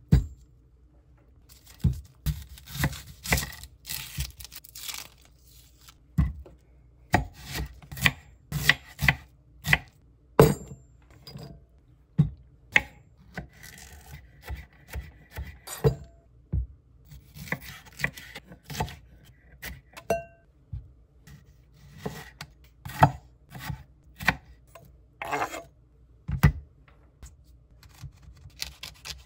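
Kitchen knife cutting vegetables on a wooden cutting board: a long run of sharp, irregular knocks as the blade strikes the board.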